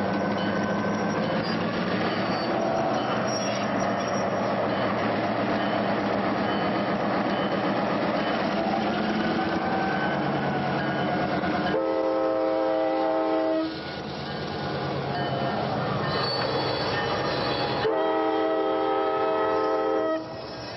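A 1500-horsepower diesel switcher locomotive running steadily. It then sounds its air horn twice: a long blast about twelve seconds in and a second long blast near the end. Two long blasts are the standard signal that the brakes are released and the train is about to proceed.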